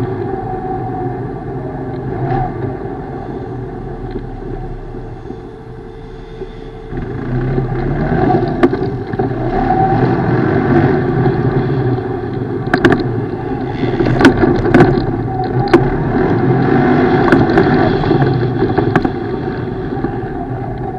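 ATV engine running under throttle. It eases off about four seconds in and picks up strongly again about seven seconds in, with several sharp knocks in the middle stretch.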